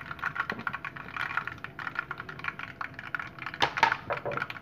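Mustard seeds and whole spices (cloves, cardamom, peppercorns) spluttering in hot coconut oil over a high flame: rapid, irregular popping and crackling, with a louder burst of pops just under four seconds in.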